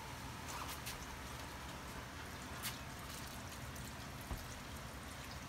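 Half-and-half poured from a carton into a pot of cooked vegetables: a faint, steady liquid pour, with a few light clicks.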